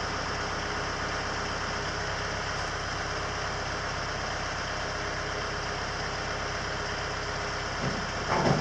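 A steady mechanical drone, like a motor or engine running at an even speed, with a constant hum that does not change.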